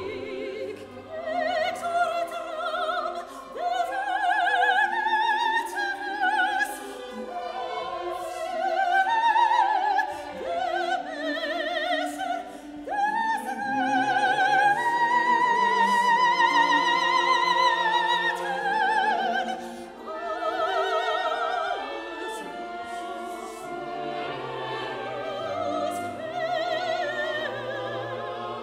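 Classical soprano soloist singing with wide vibrato over a string orchestra, in a requiem. The line rises to a long, loud high note about halfway through, then drops back as the strings carry on beneath.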